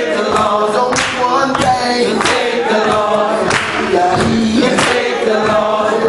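Congregation singing a hymn together without instruments, many voices on held notes.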